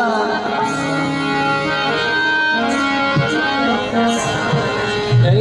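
Harmonium playing the bhajan's melody in an instrumental passage between sung lines, with percussion keeping the beat.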